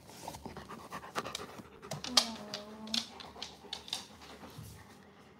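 German Shepherd panting close to the microphone, with scattered clicks. About two seconds in, a short low note is held for under a second, falling slightly.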